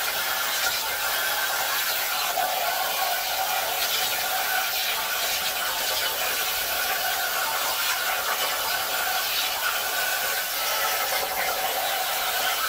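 Jasic Cut 45 air plasma cutter on a CNC table cutting through sheet metal: a steady hiss of the plasma arc with a wavering whine running through it.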